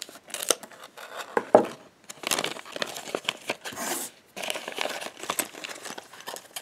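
Scissors snipping through a plastic blind-bag packet, then the packet crinkling and rustling as it is pulled open and the toy pieces are taken out. Many short sharp clicks and crackles, the loudest about one and a half seconds in.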